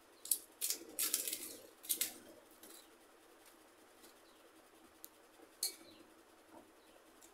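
Fried papad crunching as it is bitten and chewed: a run of sharp, crisp crunches in the first two seconds, then one more crunch about five and a half seconds in.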